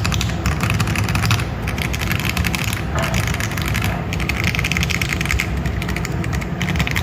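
Fast, continuous typing on a mechanical keyboard fitted with Akko Clear Black ASA-profile keycaps: a dense stream of key strokes, slightly deeper and less ringing than other ASA-profile sets.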